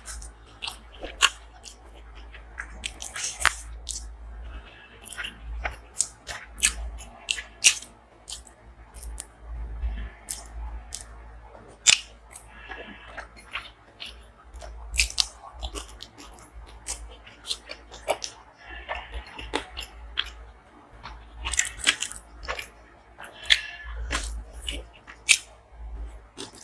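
Close-miked eating: a person biting and chewing food, with sharp crunches and wet mouth clicks coming at irregular intervals.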